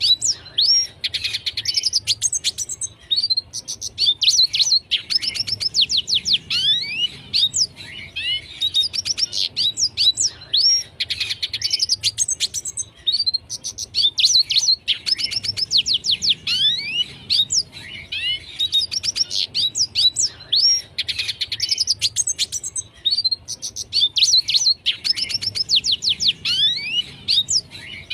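Red siskin singing: a run of fast twittering phrases made of quick sweeping notes, repeated one after another with short pauses between.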